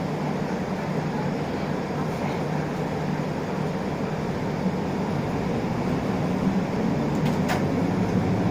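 Isuzu Erga LV290 city bus under way, heard from inside the cabin: steady four-cylinder diesel engine drone with road noise. The engine grows a little louder about six seconds in, and there is a brief click near the end.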